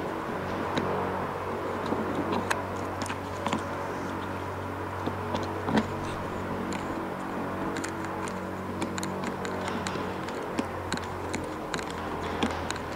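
Small metal clicks and taps, scattered and irregular, of a cap and hand tool being worked at an aircraft oxygen fill port, over a steady low hum.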